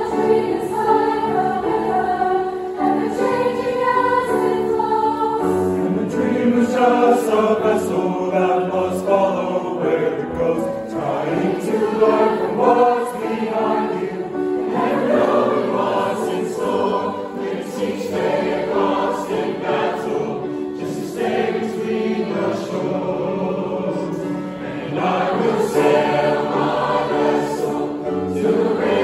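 A large combined high school choir of mixed voices singing a choral song.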